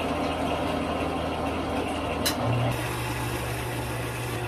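Steady rush of water through a whole-house iron filter and its PVC line, with a low hum under it: the filter is still letting out the water it has stored. A click a little over two seconds in, after which a louder low hum comes in.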